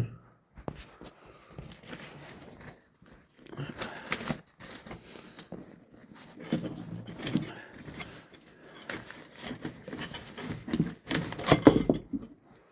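Metal hand tools clinking and rattling as they are handled, picked up and set down, with a louder clatter near the end.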